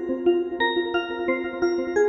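Music for a ballet: a gentle melody of held notes, each new note starting about three times a second.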